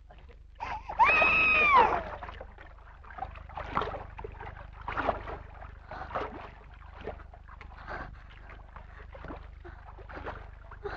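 A baby's long, high-pitched wailing cry that rises and falls, about a second in. It is followed by a run of short, soft, irregular sounds.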